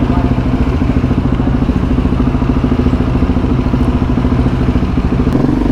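Husqvarna 701 Supermoto's single-cylinder engine idling through an aftermarket Wings exhaust, with a steady, fast, even pulse.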